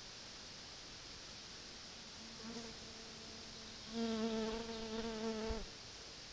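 A flying insect buzzing close to the microphone, over a steady hiss. A faint hum comes in about two and a half seconds in; a louder, slightly wavering buzz follows a second later and stops abruptly after about a second and a half.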